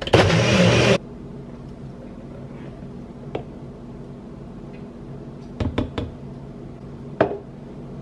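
NutriBullet blender running on a smoothie for about a second, then cutting off suddenly. A few sharp knocks and clinks follow as a cup and a jar are handled on a countertop.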